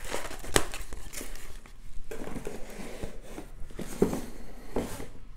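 A rolled diamond painting canvas with a clear plastic cover being unrolled and pressed flat by hand. The plastic film crinkles and crackles in irregular rustles.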